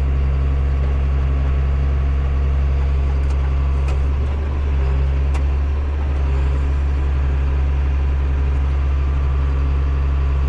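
Combine harvester running steadily while threshing soybeans, heard from inside the cab: a loud, even, low drone.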